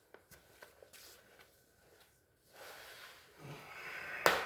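Handling noise as refrigerator freezer parts are fitted back together: a few light clicks, rustling and scraping, and one sharp knock near the end.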